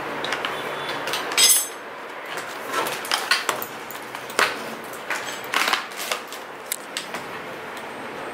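Metal bicycle parts clinking and knocking as the front fork and headset pieces are handled and fitted into the steel frame's head tube, a string of irregular clicks with one louder ringing metallic clank about one and a half seconds in.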